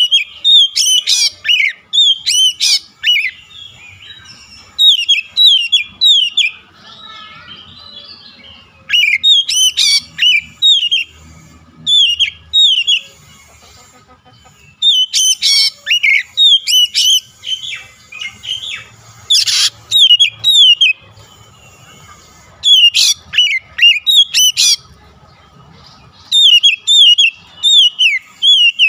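Oriental magpie-robin (kacer) singing loudly in repeated phrases of quick, down-slurred whistled notes, with short pauses between phrases and a few sharper, higher notes.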